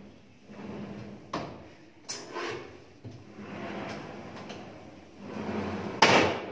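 Sliding whiteboard panels rolling along their track in repeated rumbling pushes, with sharp knocks about a second and a half and two seconds in. The loudest knock comes near the end.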